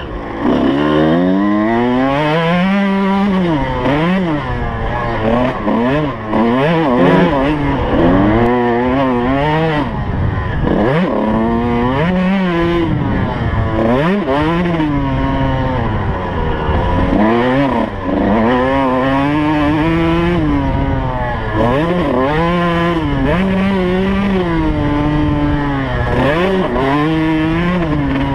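2003 Suzuki RM125's two-stroke single-cylinder engine being ridden hard, its pitch climbing steeply and dropping back again and again as the rider runs up through the gears, shifts and backs off.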